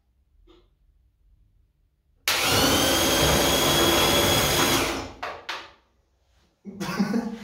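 An 800 W car starter motor, used as the drive of a homemade electric tricycle and fed straight from a car battery, spins up suddenly about two seconds in and runs with a loud, steady high whine for about two and a half seconds before winding down. The belt-driven wheel comes off during the run, and there is a clatter near the end.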